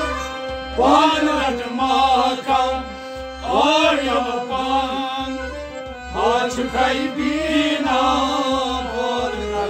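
Sufi kalam sung by a man in long phrases that bend in pitch, over the held notes of a harmonium and a steady low drum beat.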